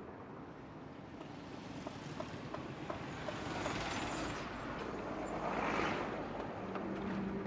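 Road traffic: vehicles driving past, the noise building to its loudest a little after the middle as a pickup truck and then a car pass close by. A steady low engine hum comes in near the end.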